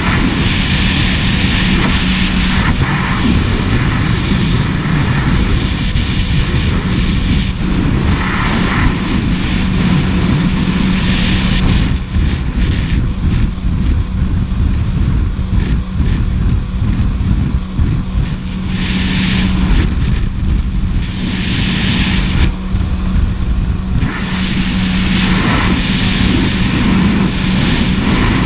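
Jet ski running at speed: a steady engine drone mixed with the rush of wind and water spray on a camera mounted on the craft. The hiss of wind and spray eases for a stretch in the middle.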